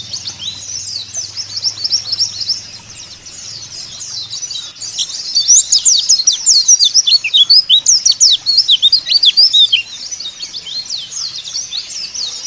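White-eyes twittering in a dense, fast stream of high chirps. The chirping grows louder from about five seconds in and eases again near ten seconds.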